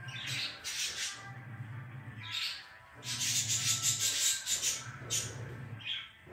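A dog rolling on its back and mouthing a fabric toy, making short high squeaky sounds and noisy rustling bursts, the longest about three seconds in. Background music with a low repeating bass note runs underneath.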